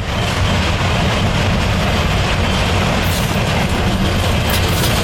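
Two-section VL10U DC electric freight locomotive approaching at the head of a container train, with a steady loud rumble of locomotive and wagons on the rails. Sharp clicking joins it about three seconds in.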